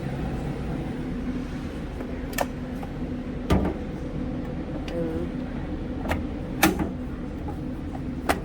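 Several sharp clicks and knocks from handling the open vending machine's coin changer and cash box, the loudest about three and a half seconds in, over a steady low hum.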